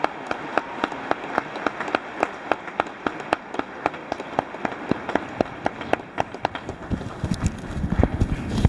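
Large theatre audience applauding after the song ends, a steady patter of clapping with individual sharp claps standing out. A low rumble rises near the end.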